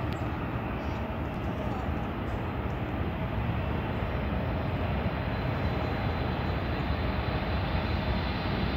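Boeing 747-8 jet airliner landing, its four GEnx turbofan engines giving a steady jet rumble that grows slightly louder toward the end.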